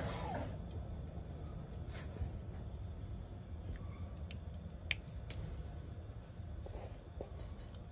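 Steady high-pitched trill of insects in the background, a constant fine pulsing, over a low hum, with a couple of short sharp clicks about five seconds in.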